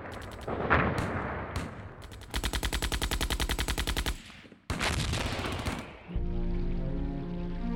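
Battle gunfire: scattered shots, then a rapid machine-gun burst of about ten rounds a second lasting nearly two seconds, then another loud burst of fire. About six seconds in, low, slow string music takes over.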